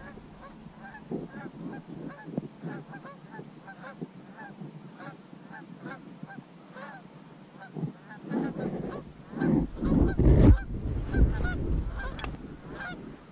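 Geese honking: many short, repeated calls that grow busier and louder in the last few seconds. A low rumble comes in about ten seconds in.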